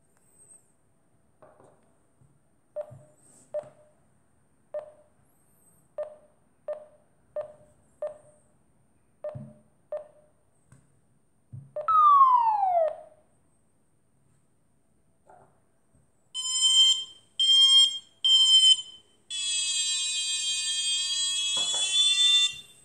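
Free-flight variometer audio: irregular short beeps at one pitch, then a single loud tone sliding down in pitch for about a second, followed by three higher, buzzier beeps and a long buzzy tone lasting about three seconds.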